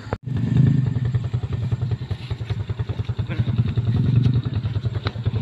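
A vehicle engine idling: a steady, low, rapidly pulsing rumble, with a few sharp clicks and knocks over it.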